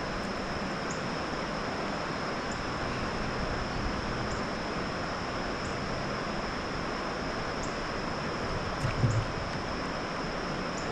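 Steady rushing of river water running over rocky shoals, an even, unbroken wash.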